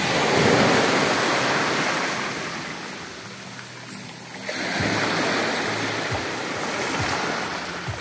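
Small sea waves breaking and washing up over a pebble shore, in two surges: one right at the start and another about halfway through.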